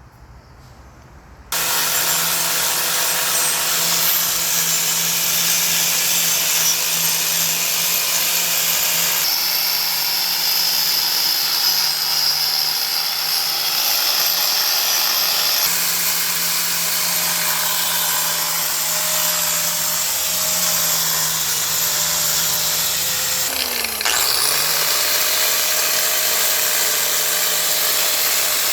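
Power tool spinning a wire wheel against the steel mating surface of a semi-truck wheel hub, scrubbing off grime and buildup. It starts about a second and a half in and runs steadily, slowing briefly and picking back up near the end.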